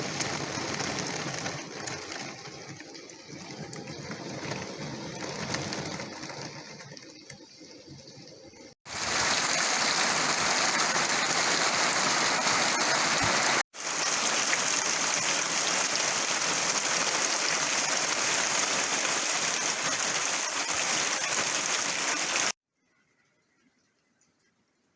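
Rain: a lighter patter with small ticks for the first several seconds, then a loud, even downpour from about nine seconds in that breaks off for an instant and stops suddenly near the end.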